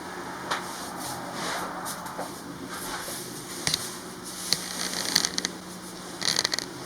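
Scattered rustles, scrapes and sharp clicks, busiest in the second half, over a faint steady low hum.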